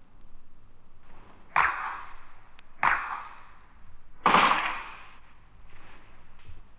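Three single gunshots about a second and a half apart, each with a short echoing tail, the third the loudest, in a combat sound effect.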